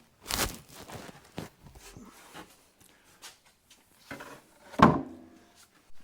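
Wooden boards being handled and set down on a workbench: a loud wooden clunk just after the start, a few lighter knocks, and another loud clunk with a short ring about five seconds in.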